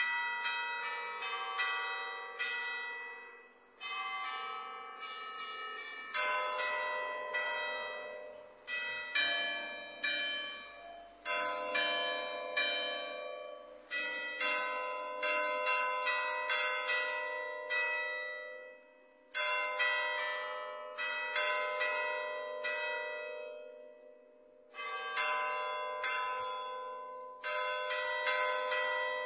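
A ring of five church bells struck one after another in a tune, each strike ringing on and overlapping the next, in phrases with short pauses between them.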